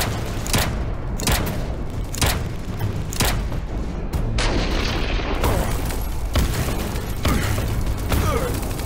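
A steady beat of heavy booms, a little over one a second, with a denser rattling noise joining about four and a half seconds in.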